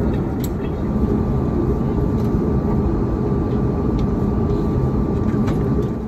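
Deep, steady rumble of engine and airflow noise inside an airliner cabin in flight, on approach to landing.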